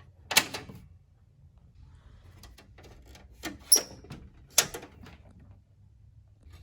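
Computer hardware being handled inside a workstation case as the graphics card is taken out: a few sharp clicks and knocks of plastic and metal parts, one with a short high squeak.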